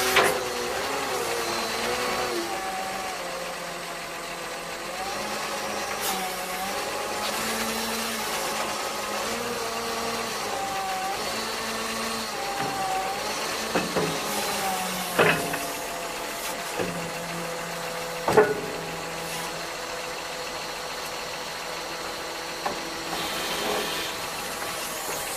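Komatsu WA320-6 wheel loader's Cummins diesel engine running at low revs, with a whine that rises and falls as the bucket is worked, and a few sharp clunks.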